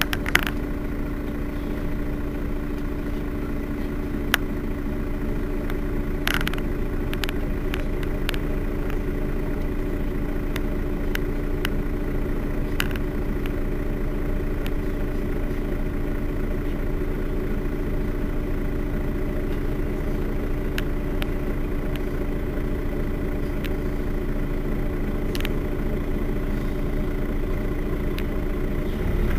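Mercedes-Benz Citaro Facelift city bus engine idling steadily at a stop, with a constant hum over the engine's rumble and a few short clicks.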